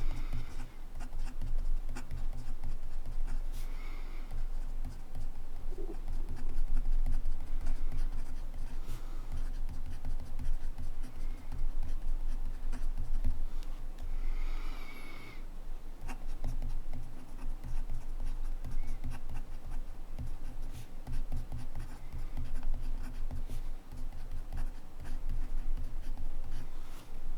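Montblanc Meisterstück 144 fountain pen nib scratching across paper in continuous handwriting strokes, with a few brief louder scratches.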